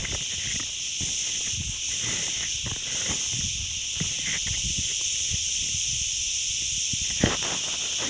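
A dense chorus of insects in pine trees shrilling steadily without a break. Soft low thumps sound underneath, with a short louder one near the end.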